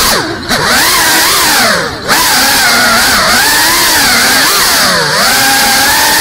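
GEPRC Cinelog 35 FPV cinewhoop's brushless motors and ducted propellers buzzing, the pitch swooping up and down with the throttle. Three brief throttle cuts, about half a second in, at two seconds and at five seconds, let the pitch drop away before it climbs again.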